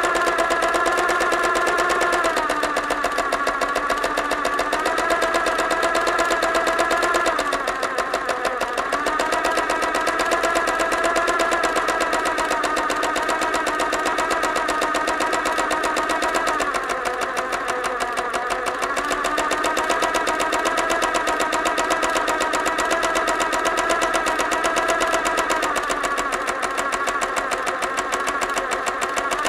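Sewing machine running fast with a rapid, even stitching rattle. Its pitch dips and recovers several times as the speed eases off and picks up again.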